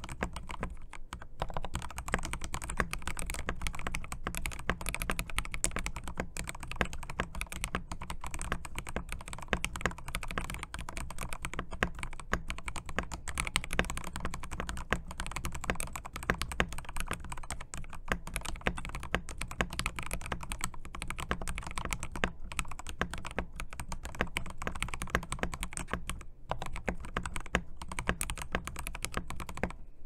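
Continuous fast typing on a Yunzii KC84 mechanical keyboard fitted with lubed Ajazz Peach switches, stock keycaps, band-aid-modded stock stabilisers and foam in the case: a dense, unbroken stream of keystrokes.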